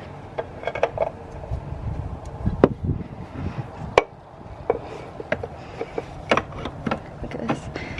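Irregular clicks and knocks of hands and metal tools against the oil filter housing and car underside as the oil filter is worked loose and pulled out, over low handling and rustling noise.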